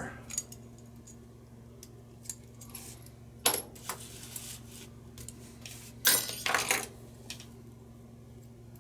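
Small screwdriver and metal lighter parts clicking and clinking as a screw is taken out of a butane lighter: scattered sharp clicks, the loudest about three and a half seconds in and a quick cluster about six seconds in, over a steady low hum.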